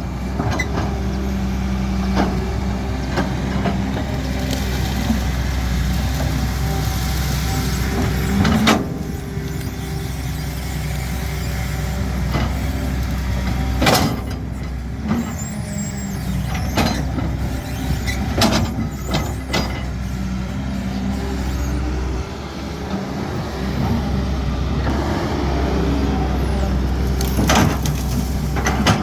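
Caterpillar 320D excavator's diesel engine running steadily, working under changing load, with a handful of sharp knocks spread through, the loudest about halfway.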